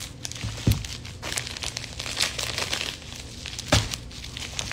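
Scissors cutting open a package, with the packaging crinkling and rustling as it is handled. Two dull knocks, about a second in and near the end, are the loudest sounds.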